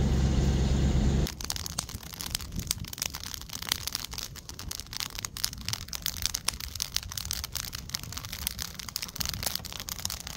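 A vehicle engine idling steadily, cut off about a second in; then a wood fire burning in an upright log, crackling and popping in dense, irregular snaps.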